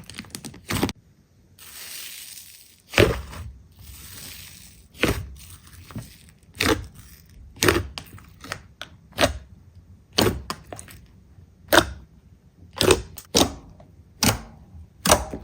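Slime being pressed and squeezed by hand, giving sharp crackles and pops about once a second, with a soft hiss for a few seconds near the start.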